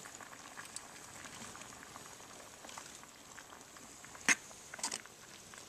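Water with pasta boiling in a small camp cook pot, a faint steady bubbling full of tiny ticks. A sharp click about four seconds in, followed by a few lighter ticks.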